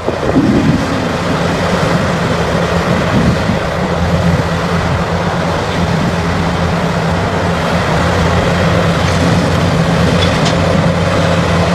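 Heavy diesel mining machinery running steadily: a low engine drone with a noisy mechanical rumble over it.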